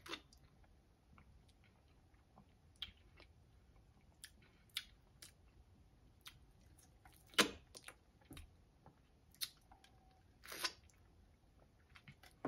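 Faint close-up mouth sounds of a person sipping a drink through a straw and chewing, with scattered small clicks and two louder short bursts, one past the middle and one about two-thirds in.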